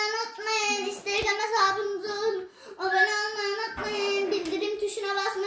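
A high, child-like voice singing a sustained, slightly wavering melody.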